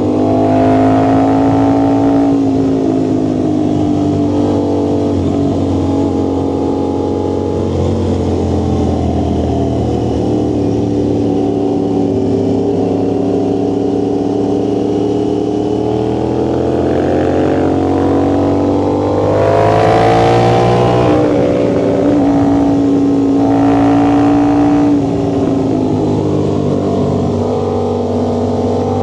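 Vehicle engine and exhaust running under way on a steady ride. The engine note slowly falls, then climbs under acceleration to its loudest about two-thirds through, drops back, rises briefly once more and settles.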